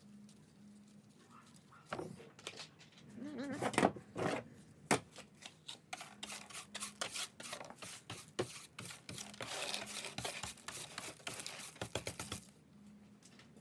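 Scrap metal being handled and sorted: a long run of quick clicks, taps and rattles. A cat meows briefly about three and a half seconds in.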